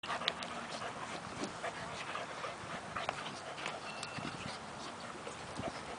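Two young dogs play-fighting in loose dirt: many short scuffs and scrapes, with brief dog vocal noises.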